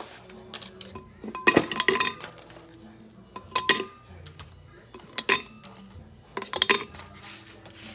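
A knife or other cutlery clinking and scraping against a plate while something is cut into cubes. It comes in four short clusters of clicks, about a second and a half apart.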